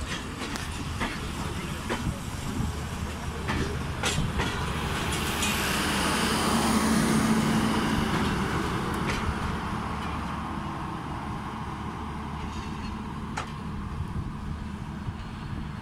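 Pakistan Railways passenger coaches rolling past on the rails as the train pulls into the station, a steady running noise with occasional sharp clacks. It swells about halfway through, then fades as the last coach goes by and moves away.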